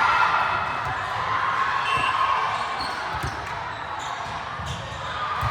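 Echoing chatter of players and spectators in a gymnasium, with a few dull thumps of a volleyball about three seconds in and again near the end.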